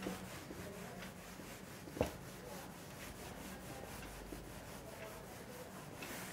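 Whiteboard duster wiped over a whiteboard in repeated strokes, a faint rubbing. A single short knock comes about two seconds in.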